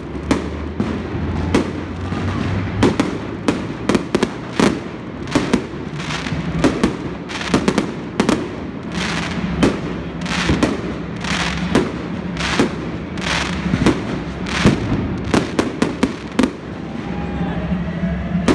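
Fireworks bursting overhead: an irregular run of sharp bangs, one to a few a second, over a steady background of noise.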